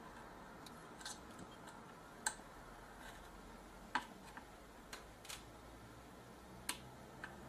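Small, sharp metal clicks of a jeweler's screwdriver tip and soldering iron tip against a surface-mount regulator's legs on a circuit board, as the legs are prised up from their molten solder pads. About eight irregular ticks over a faint hiss, the sharpest about two, four and seven seconds in.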